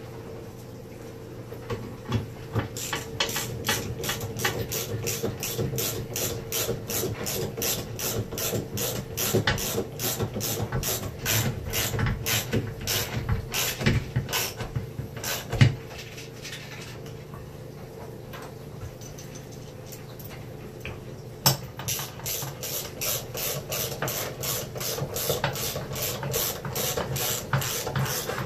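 Socket ratchet clicking at about three clicks a second as quarter-inch lag bolts are wound into the wall to hold a barn door rail mount. It goes in two runs with a pause of several seconds between them, marked by a single sharper knock at each end of the pause.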